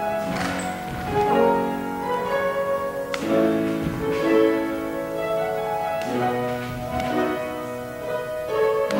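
Classical piano music at a slow pace, with held chords changing about once a second.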